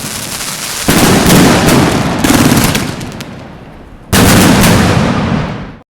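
Fireworks going off in rapid volleys: dense crackling and bangs, loudest in two stretches starting about a second in and about four seconds in, then cut off abruptly.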